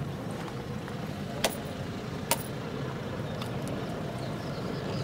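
A steady low motor hum, with two sharp clicks a little under a second apart in the first half.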